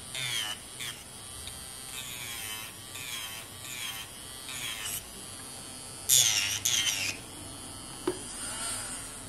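Electric nail drill whining as it files gel off an artificial nail, its pitch dipping and rising as the bit is pressed on and eased off, with a louder grinding stretch about six seconds in. The bit is not coarse enough to grab and strip the gel layers quickly.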